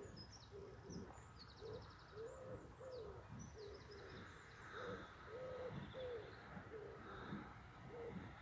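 Faint birdsong: a run of short, low cooing notes repeated about twice a second, with higher songbird chirps and trills over them that fade after the first half.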